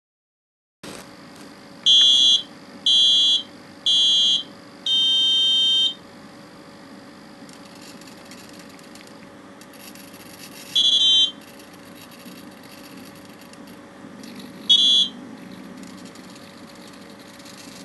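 Electronic buzzer on a home-made laser-guided "Ghost Climber" race device beeping a race-start countdown: three short high beeps about a second apart, then a longer fourth beep. Two more single short beeps follow several seconds apart, over a steady faint hum.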